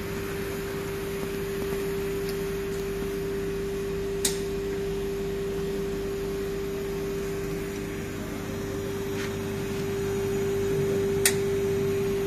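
Launch R1234yf air-conditioning service machine running with a steady, even hum and tone, with two sharp clicks, about four and eleven seconds in.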